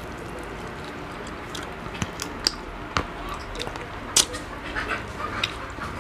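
Close-up eating sounds of crispy fried field frog: chewing and mouth noises with a handful of short, sharp crunches and clicks scattered through, over a low steady background.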